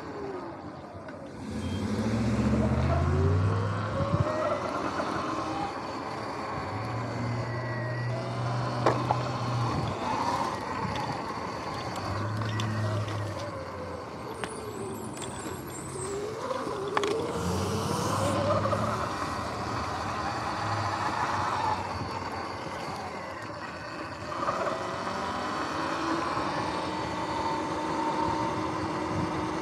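Sur-Ron Light Bee X electric dirt bike riding, its motor whine rising and falling in pitch as the speed changes, over steady tyre and wind noise. Short stretches of low hum come and go.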